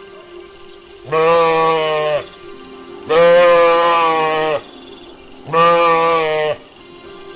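Lamb bleating three times, each a drawn-out call of about a second, the middle one the longest, over a quiet steady background tone.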